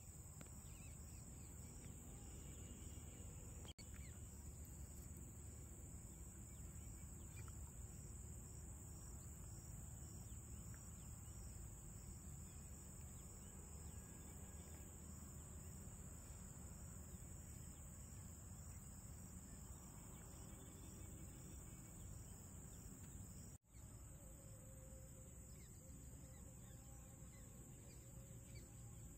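Faint rural outdoor ambience: a steady low rumble under a continuous high-pitched insect drone, with a few faint bird chirps.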